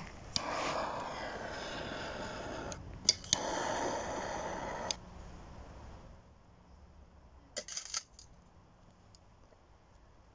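Handheld butane torch lighter clicked on, its jet flame hissing steadily for about four and a half seconds, briefly cut and re-lit with a click a little under three seconds in. A few seconds later, a couple of sharp metal clanks as the steel charcoal chimney starter is set down on its base.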